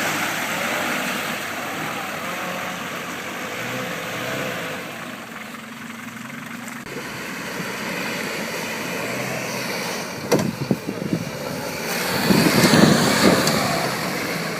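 Off-road 4x4 engine running, with a few knocks about ten seconds in and a louder surge for a second or two near the end.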